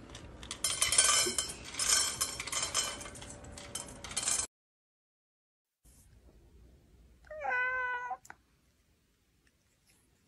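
A loud, harsh noise with clicks and a few steady tones that cuts off suddenly about four and a half seconds in; then, after a short silence, a cat gives one warning meow lasting about a second.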